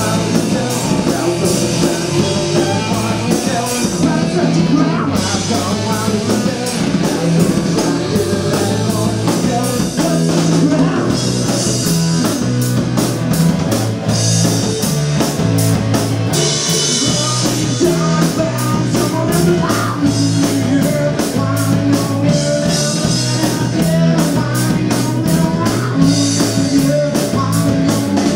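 Live rock band playing loudly: electric guitar, bass guitar and a drum kit keeping a steady beat, with a singer's vocals.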